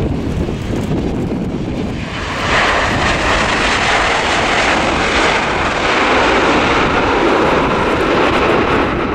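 Boeing 787-10 airliner's jet engines on touchdown and landing rollout: a steady roar that grows louder and hissier about two and a half seconds in and then holds.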